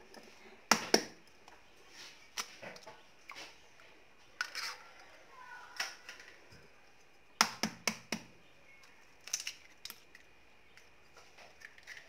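Eggs tapped against a cut-glass bowl, their shells cracking and the eggs dropping in: a string of sharp clicks and taps, two eggs in all, with a quick cluster of taps about seven to eight seconds in.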